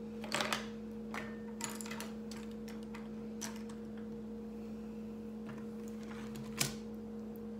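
Small, scattered clicks and taps of makeup being handled, with one sharper click near the end, over a steady low hum.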